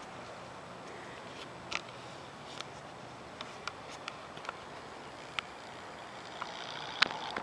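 Camera handling noise from a handheld camera stabilizer rig carried while walking: irregular small clicks and ticks over a steady hiss, with a sharper click about seven seconds in.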